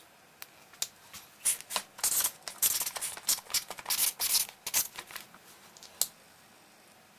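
Marker pen writing on paper: a run of short scratchy strokes, then a single sharp click near the end.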